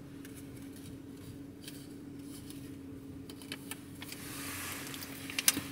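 Small paper slips being handled and unfolded: faint crinkling and light clicks, growing into a soft rustle about four seconds in, with a few sharp clicks near the end. A steady low hum of the car cabin runs underneath.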